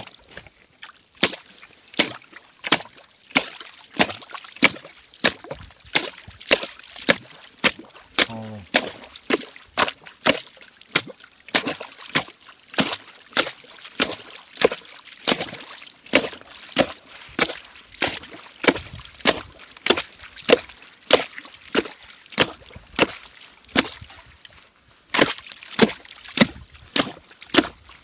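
Steel ice chisel on a wooden handle chopping into ice in a water-filled hole, repeated strikes about two a second with a short pause near the end.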